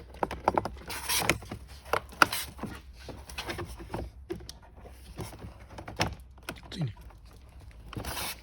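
Irregular clicks, taps and knocks of plastic parts and tools being handled and fitted together while assembling a ride-on toy car.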